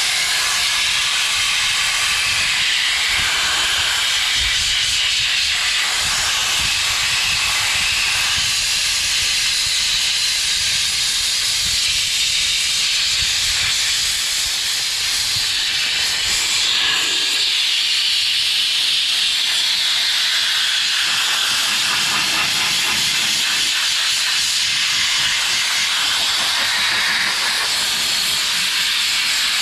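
Compressed-air blow gun hissing steadily as its jet is played over damp floor carpet to blow it dry.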